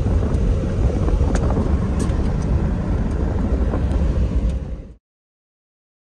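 Cabin noise of a pickup driving on a dirt road: a steady low rumble of engine and tyres with a few faint ticks. It cuts off suddenly about five seconds in.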